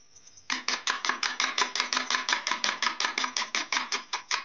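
Metal spoon beating eggs in a bowl: fast, even clicking strokes, about six a second, starting about half a second in.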